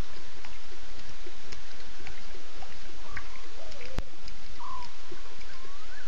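Outdoor ambience at a waterhole: a steady hiss with a low rumble, and faint scattered short chirping calls that glide up and down in pitch.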